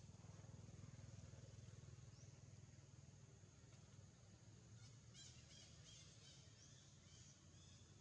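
Faint outdoor ambience: a steady low rumble and a thin high hiss, with a burst of rapid high bird chirps and a few quick rising whistles from about five seconds in.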